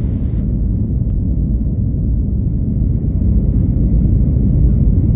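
Steady low rumble of an Airbus A321neo's engines and airflow, heard inside the passenger cabin during the climb after takeoff. A higher hiss over the rumble cuts off abruptly about half a second in.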